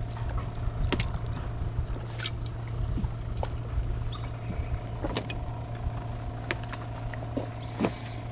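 A boat's motor running steadily with a low hum. A few sharp clicks and knocks sound over it.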